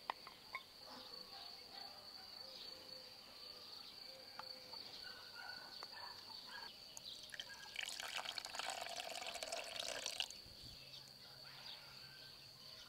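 Faint wet scraping and a few light clinks of a wooden spoon working tomato paste and mustard out of dishes into a glass mixing bowl, louder for about two seconds some eight seconds in. A steady high insect trill runs underneath.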